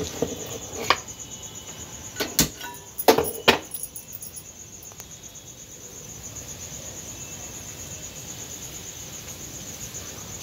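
A cricket chirping in a steady, high, evenly pulsing trill. A few knocks and clatters come in the first few seconds as bread slices are moved about on a hot tawa griddle.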